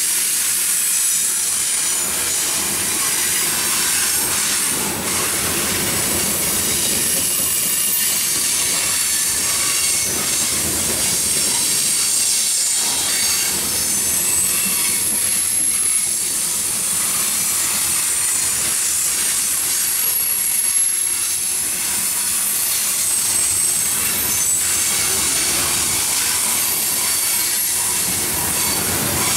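Freight train tank cars rolling past close by: a steady rush of steel wheels on rail, with thin high-pitched wheel squeal coming and going over it.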